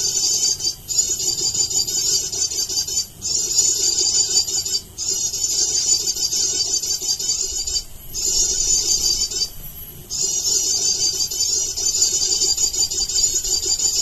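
High-pitched, rapid chirring in long unbroken stretches separated by short breaks, five or six times, with a faint steady lower tone underneath.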